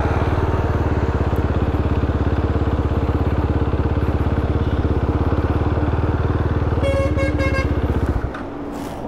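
Motorcycle engine running with a steady, even pulse, then cutting out abruptly about eight seconds in. Just before that, a vehicle horn sounds in a few short beeps.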